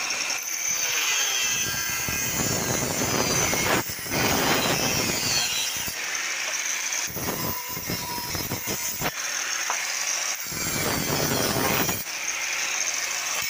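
Angle grinder with an abrasive cut-off disc running and cutting through steel tube, a loud high-pitched grinding screech. The cutting sound drops for a moment a few times as the disc comes off the metal.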